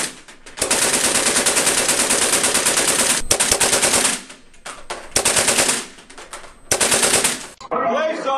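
Shootback robotic pan-tilt air cannon firing nylon paintball-calibre balls in rapid automatic bursts: one long burst of about three and a half seconds, then two shorter bursts.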